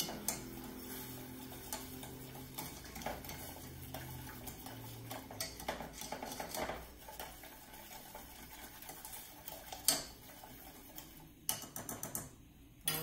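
A spoon stirring a glaze in a stainless steel saucepan, clinking and scraping against the pan's sides in irregular small ticks, with one sharper knock about ten seconds in.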